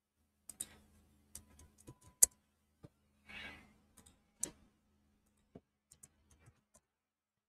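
Scattered light clicks of a computer keyboard and mouse as text is typed into a form field and then selected, with one sharper click about two seconds in. A short soft hiss comes around three and a half seconds.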